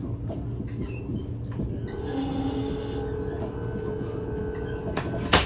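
NS ICNG (Alstom Coradia Stream) electric train running, with a steady low rumble and a humming drive tone that comes in about two seconds in. A single sharp, loud click near the end.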